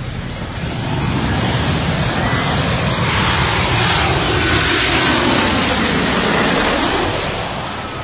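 Twin-engine jet airliner on final approach passing low overhead. The engine roar swells over about a second, stays loud for several seconds with a sweeping whoosh as the plane goes over, then fades near the end.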